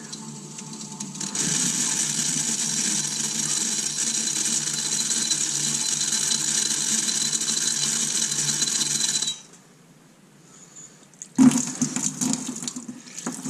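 Water from a garden hose hissing as it jets into a coolant drain hole of the engine block, flushing out sludge. It runs steadily, cuts off about nine seconds in, and a louder rough splashing noise follows near the end.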